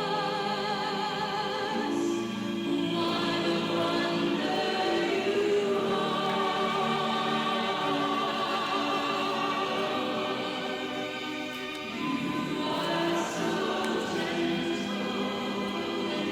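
A choir singing a slow hymn in long, held notes, with a phrase break about two seconds in and a brief dip near twelve seconds.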